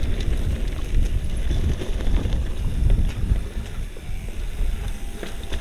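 Wind rumbling on the microphone over the rattle of a mountain bike riding a rocky trail.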